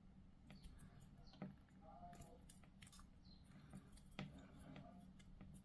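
Faint, scattered clicks and taps of small plastic miniature parts being handled and pressed together in push-fit assembly.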